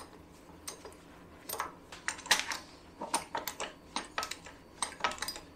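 Irregular sharp metallic clicks and clinks from a steel handle working a small hydraulic bottle jack that is pushing the cylinder head up off a Jaguar 4.2 XK engine block. A few clicks at first, then two or three a second from about a second and a half in.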